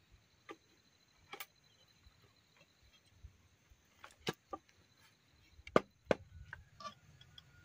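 Machete chopping into bamboo: a handful of separate sharp knocks, spaced irregularly, the loudest near the end.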